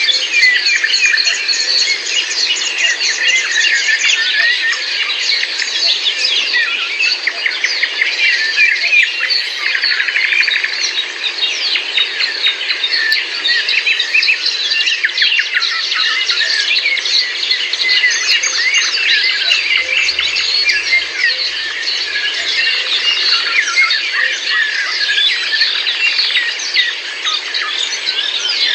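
A dense chorus of many songbirds chirping and trilling at once, with a steady rushing noise underneath.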